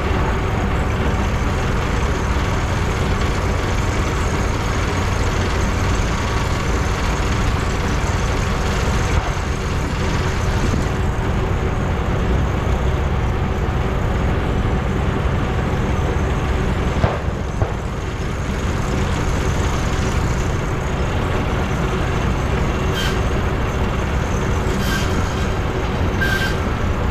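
Steam engine belt-driving a sawmill, making a loud, steady mechanical din with a low hum. There is a sharp click about two-thirds of the way through and a few short high tones near the end.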